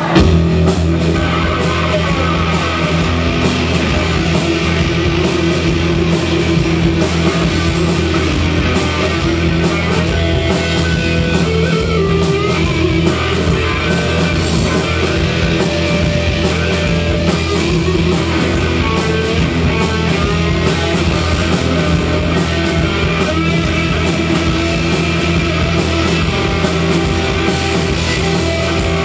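Live rock band playing loud and steady on electric guitars and a drum kit, the song kicking in abruptly at the start.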